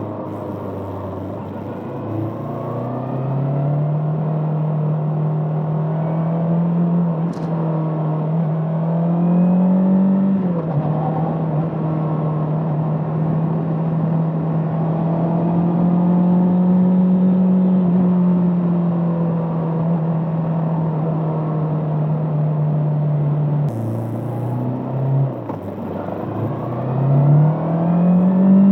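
Bristol Venturi 500 motorcycle engine under way. Its note climbs and drops sharply at a gear change about ten seconds in, then holds steady at cruise. It sags around twenty-four seconds as the rider eases off, then climbs again and drops at another shift near the end.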